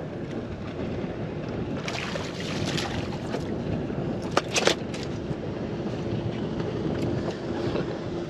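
Wind buffeting the microphone over water lapping against a small boat's hull, with a couple of brief sharp knocks. A faint steady hum comes in about halfway through.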